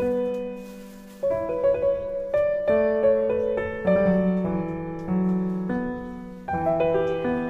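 Slow piano music: chords struck every second or so, each ringing out and fading before the next.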